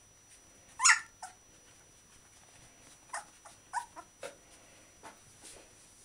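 Whippet puppies, about two weeks old, squeaking and whimpering: one loud squeal just under a second in, then a few shorter squeaks between about three and four and a half seconds.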